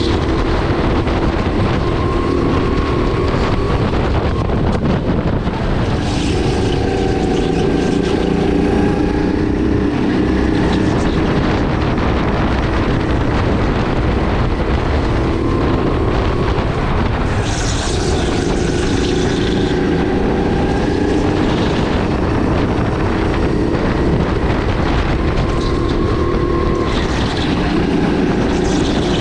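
Sodi RX8 kart's 270 cc LPG engine at racing speed, revs climbing for several seconds and then dropping, over and over, as the kart laps the track. Wind noise is on the microphone.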